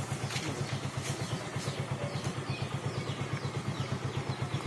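Motorcycle engine idling with an even, steady low pulse, with a few faint clicks over it.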